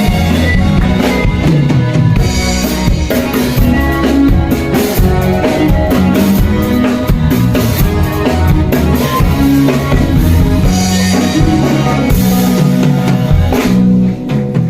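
Band music with a drum kit playing a steady beat of snare, rimshot and bass drum over sustained instruments; it drops away about a second before the end.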